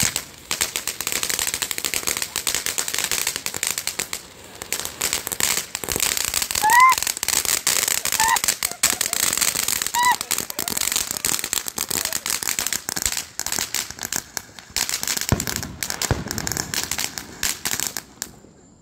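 Ground fountain fireworks crackling on the pavement, a dense, rapid crackle of tiny pops as they spray sparks, with a few short chirps about seven to ten seconds in. The crackling dies out just before the end.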